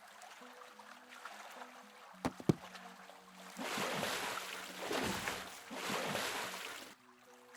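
Soft music, then two sharp knocks a fraction of a second apart, followed by three surges of water splashing and sloshing about a second apart, louder than the music, which drops out under them.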